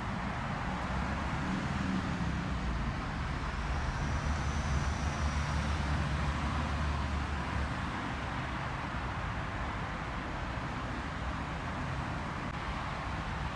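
Steady road traffic noise, with a low rumble that swells and fades between about four and eight seconds in, like a vehicle passing.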